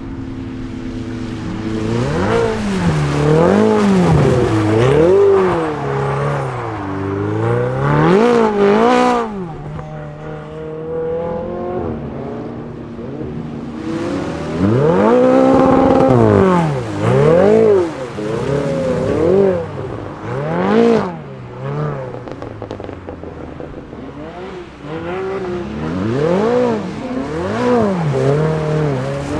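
Ferrari 488 GTB's twin-turbo V8 through an Akrapovic exhaust, revving up and down over and over as the car drifts on a wet track. Short bursts of hiss about eight and twenty-one seconds in.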